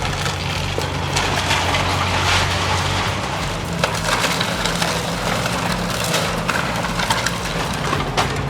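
Heavy excavator's diesel engine running steadily under scattered cracking and crunching of wood being broken and crushed, as in demolition.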